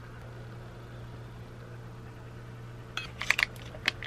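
A steady low hum, then about three seconds in a short run of crinkling and crackling as a stick of butter is peeled out of its foil wrapper.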